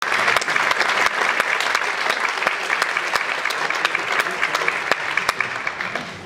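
Concert hall audience applauding: a dense patter of many hands clapping that thins and fades away near the end.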